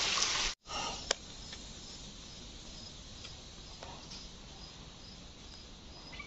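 Insect chirping steadily outdoors, a faint high pulse about three times a second over a soft hiss. Before it, a loud rushing noise cuts off suddenly about half a second in, and a single click follows.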